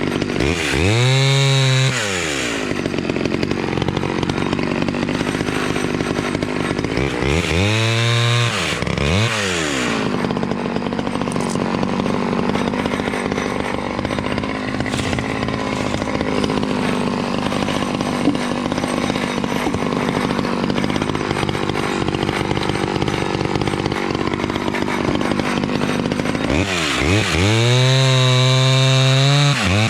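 Small vintage Stihl 011 two-stroke chainsaw cutting wood. The engine revs up high and falls back three times, near the start, about eight seconds in and near the end, and runs at a lower, steadier pitch in between.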